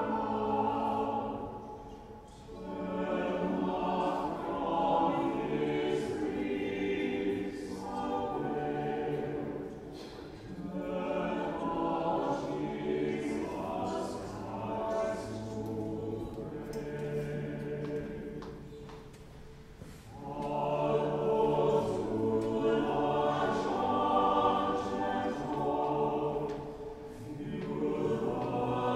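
Church choir singing a hymn in long phrases, with brief breaks between phrases about every eight seconds.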